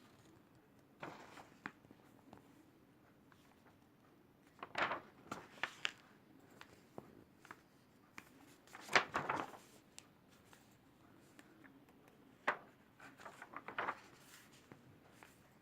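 Pages of a large paper colouring book being turned and handled: several short rustles and flaps a few seconds apart.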